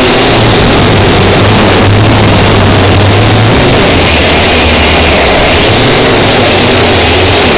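Small cheap quadcopter drone's motors and propellers buzzing loudly, heard through the drone's own onboard camera microphone. The low hum under the hiss drops in pitch about halfway through as the drone comes down low over the grass.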